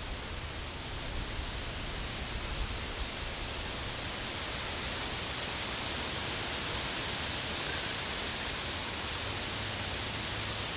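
Steady hiss of outdoor background noise, with a few faint ticks about eight seconds in.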